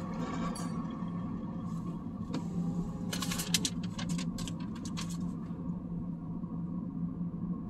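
Inside a car moving slowly: a steady low engine and road hum, with a quick run of irregular clicks and rattles from about two to five seconds in.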